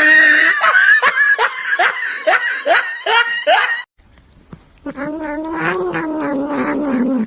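A cat yowling: a quick run of short falling cries, a little over two a second, for about four seconds, then after a short break one long, wavering yowl.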